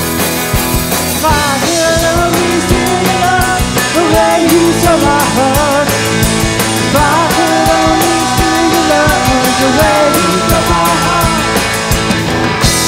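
A rock band playing live: electric guitars over a drum kit with cymbals, with bending, wavering melody lines on top.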